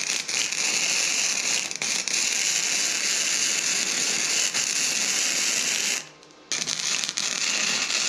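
Electric arc welding: a steady crackling, sizzling arc as the door-handle pieces are welded to their mounts, broken off once for about half a second near six seconds in before the arc is struck again.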